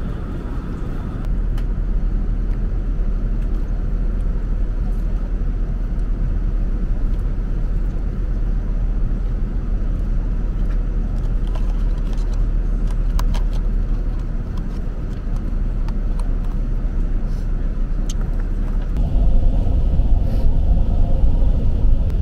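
Steady rumbling cabin noise of an Airbus A380 airliner in flight, heard from inside the passenger cabin, with a few light clicks in the middle. The noise grows louder and deeper near the end.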